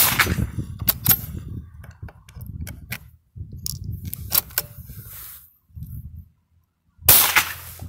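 Metallic clicking and rattling as the bolt of a Ruger American Rimfire .22 LR bolt-action rifle is worked and a round is loaded by hand through a single-shot tray. A loud, sharp burst of noise comes about seven seconds in.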